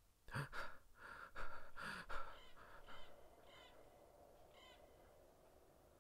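A man's faint gasping breaths as he comes to, followed by a few short bird chirps.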